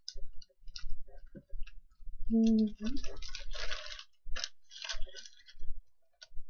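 Thin plastic carrier bag crinkling and rustling as it is handled and held up, in irregular crackly bursts, densest a little over two seconds in.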